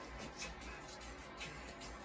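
Tarot cards handled quietly: the deck is held and a card slid or tapped, with two soft card sounds about half a second and a second and a half in.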